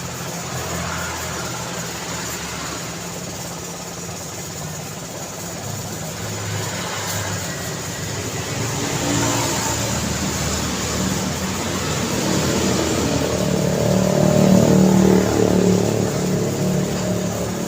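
Road traffic going by, with a steady wash of engine and tyre noise. One engine grows louder from about halfway through and passes close near the end before easing off.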